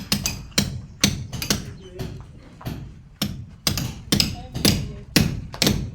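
Hammer blows struck over and over at an uneven pace, about two to three a second, while the window frames are being set.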